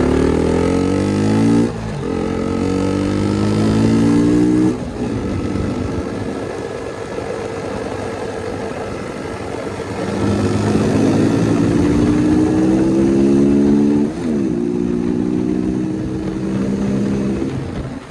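KTM single-cylinder motorcycle accelerating through the gears. The engine note climbs and drops sharply at each upshift, twice in the first five seconds. After a steadier stretch it climbs again, with another upshift about fourteen seconds in, and eases off near the end.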